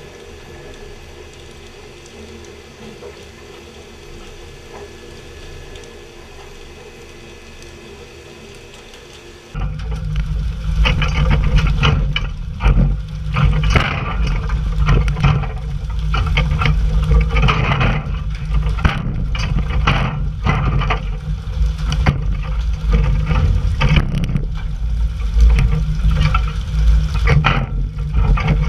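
Steady hum of a fishing boat at sea. After about nine seconds it gives way to loud rushing and splashing water, from the hull's spray jets and tuna thrashing at the surface as the crew hauls them aboard on poles.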